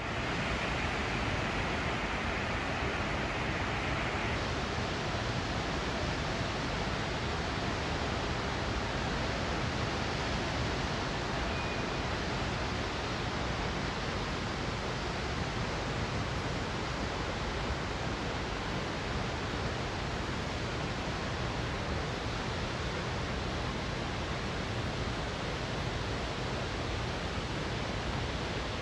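Rushing water, a steady even noise that does not let up.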